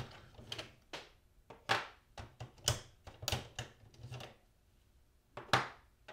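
Epson inkjet ink cartridges being unclipped and pulled one by one out of the print-head carriage: a string of irregular plastic clicks and knocks, with a sharp one about two seconds in and another near the end.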